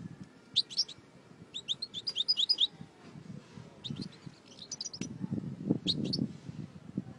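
European goldfinches (maqnin) in a cage giving short, high chirping calls in several quick bursts, with a low rumble about five seconds in.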